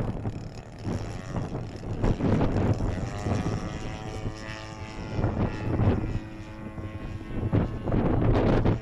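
50cc DL-50 single-cylinder two-stroke gas engine of an RC aerobatic plane running in flight, its propeller drone shifting in pitch with throttle, with wind buffeting the microphone in gusts.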